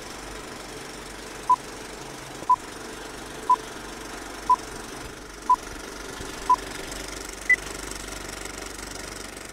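Vintage film-leader countdown effect: a film projector's steady clatter runs under a short beep once a second, six times, then a single higher-pitched beep near the end.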